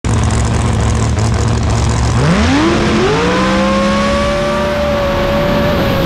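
Car engine idling low, then revving up about two seconds in, climbing in two steps and holding at high revs until near the end, over a steady rushing noise.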